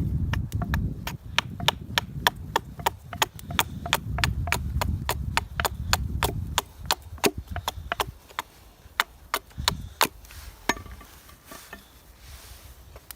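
Quick, light chopping strokes into wood as a spoon blank is roughed out, about three sharp strikes a second for the first half, then slower and sparser. A low wind rumble runs under the first half.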